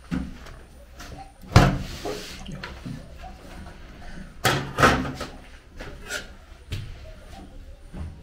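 A series of knocks and thuds with hissing noise between them. The loudest comes about a second and a half in, and two more come close together around five seconds in.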